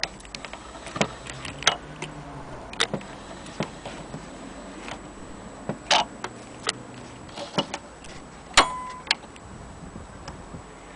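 HMV Model 101 portable gramophone's clockwork spring motor being wound with its hand crank: irregular mechanical clicks and ticks from the crank and ratchet. About three-quarters of the way through comes a louder metallic click with a brief ringing tone.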